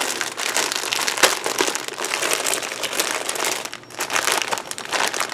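Clear plastic bag crinkling and crackling as it is handled and worked open, a dense run of small crackles with a short lull nearly four seconds in.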